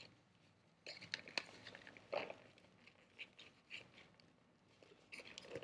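Faint scattered clicks and rustles as a kydex knife sheath's MOLLE clips are worked through and locked onto the webbing of a nylon sling bag.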